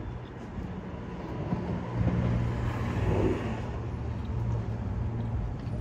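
Steady low hum of a running engine, with a swell of broader noise that rises and falls between about two and three and a half seconds in.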